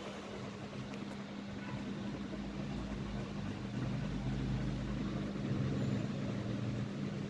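PBS 48-inch ceiling fan running fast, with a steady motor hum over the rush of air. It grows louder a few seconds in.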